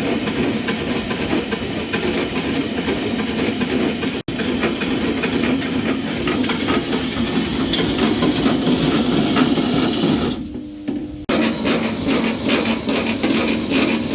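Screw conveyor machine running, a steady mechanical rumble with rattling, briefly cut off about four seconds in and dipping quieter for about a second near ten seconds before resuming with a regular clatter.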